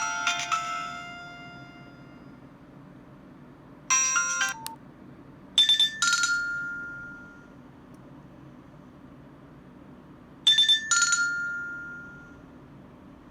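Nokia 105 phone's loudspeaker playing ringtone and alert-tone previews. A melody dies away at the start, a short jingle comes about four seconds in, and a bright two-note chime plays twice, several seconds apart.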